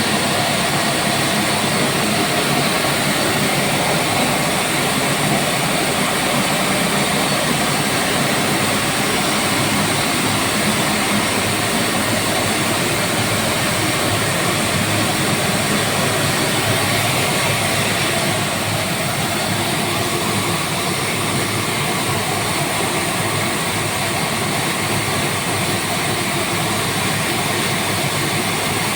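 A 22 kW (30 HP) fixed-speed screw air compressor running, a loud steady mechanical hum with hiss. The level drops slightly about two-thirds of the way through and stays steady after.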